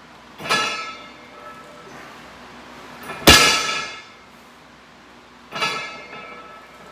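Loaded deadlift barbell touching down on a wooden lifting platform between reps: three clangs of the bar and plates, about two and a half seconds apart, the middle one the loudest, each ringing briefly.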